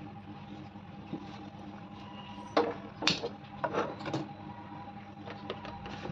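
A handful of sharp knocks and clicks in quick succession partway through, over a steady faint hum.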